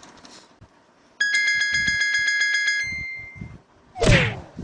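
A bright electronic-sounding chime rings for about two seconds, its higher notes dying away first. Near the end comes a short loud whoosh that falls in pitch.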